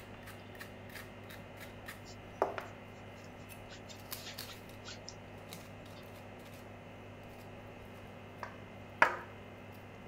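Small knife scraping and cutting into peeled quince, gouging out the seedy core: a run of small crisp clicks and scrapes. There are two louder strokes, one about two and a half seconds in and one about a second before the end.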